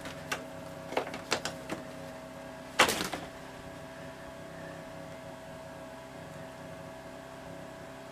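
Light clicks and taps from handling clear vinyl water tubing and its fittings, with one louder clatter about three seconds in, over a steady mechanical hum.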